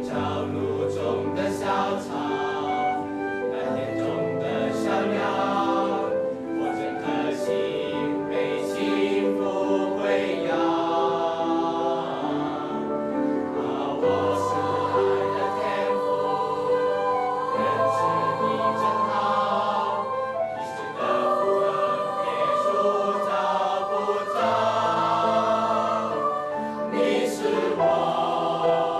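School choir of teenage boys and girls singing in parts, accompanied by grand piano and flute.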